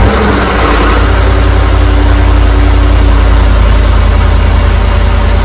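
Ford 5.4 L three-valve V8 in a 2010 F-150 running at fast idle moments after a cold start, steady and loud, while its oil pressure builds toward about 60 psi.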